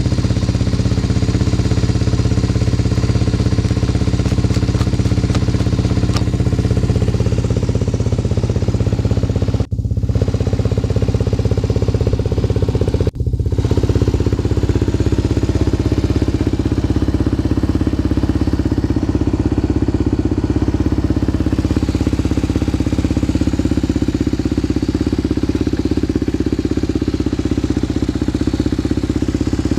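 1993 Yamaha TT250R's air-cooled single-cylinder four-stroke engine idling steadily through an aftermarket OZ Works silencer. The engine is in good running order. The sound breaks off twice for a moment, about ten and thirteen seconds in.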